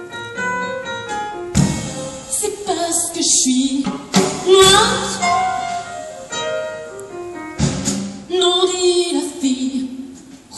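A soprano sings live with a jazz trio of grand piano, double bass and drum kit. The band lands three sharp accents, about a second and a half, four and seven and a half seconds in.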